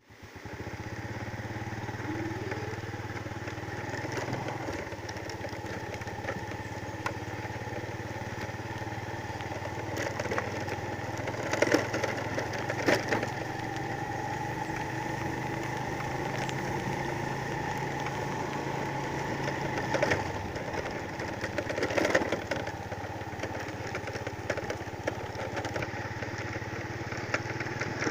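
A small engine running steadily, its pitch drifting slowly, with a few sharp knocks about halfway through and again later.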